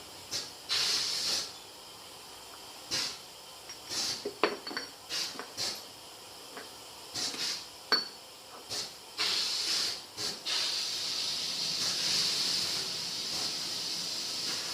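Compressed air hissing in a series of short bursts, then a long steady hiss of several seconds in the second half, with a few sharp metallic clicks between.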